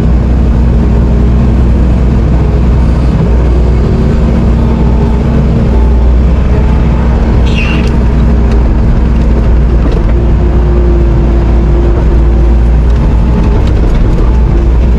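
Diesel engine of an earthmoving machine running steadily and loud while it works, backfilling soil. There is a short knock about halfway through.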